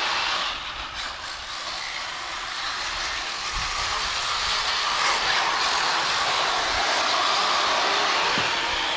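Electric RC off-road cars racing on a dirt track: a steady high whine of motors and hiss of tyres on dirt, growing louder in the second half as the cars come close.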